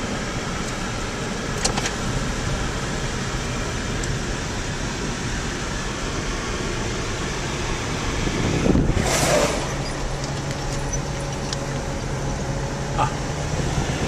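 Steady road and engine noise heard inside a moving car, with a brief rushing swell about nine seconds in. Afterwards a steady low hum from the engine holds for a few seconds.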